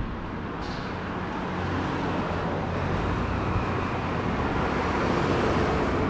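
Road traffic on a busy street: a steady rush of passing cars, growing slowly louder over the first couple of seconds.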